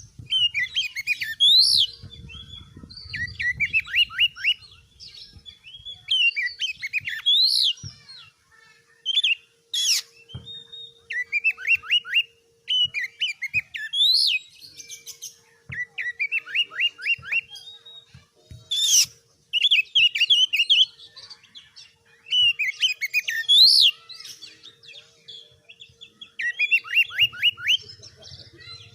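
Oriental magpie-robin (kacer) singing a varied song. Quick runs of descending whistled notes come back every few seconds, mixed with rising whistles and, twice, a sharp click-like note.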